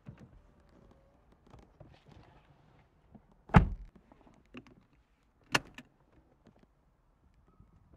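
Car door shutting with a heavy thump about three and a half seconds in, then the sharp click of a seatbelt latching into its buckle about two seconds later, with faint rustles and small clicks between.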